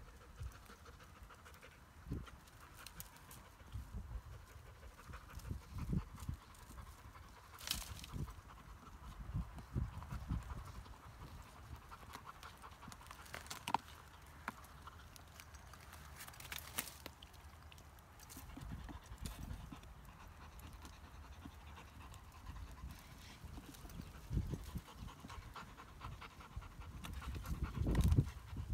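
A Kars shepherd dog panting with its head in a hollow tree trunk, with irregular low scuffs and a few sharp cracks of dry twigs in the brush around it.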